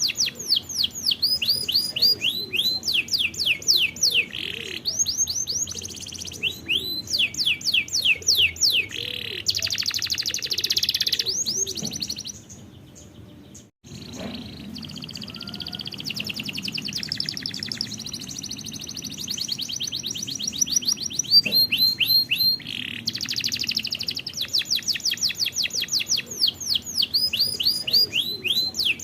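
Domestic canary song: fast rolls of repeated downward-sliding whistled notes and rapid trills, changing phrase every second or two, with a brief lull about halfway through.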